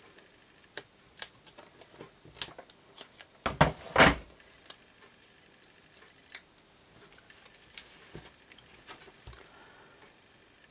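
Crafting handling sounds on a wooden tabletop: a run of sharp clicks and taps from a plastic tool and card, with a louder knock about four seconds in, then a few light taps and rubs as paper is pressed down by hand.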